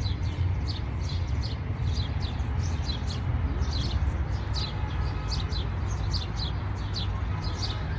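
Small birds chirping continuously: short, quick, high chirps, a few every second, over a steady low rumble.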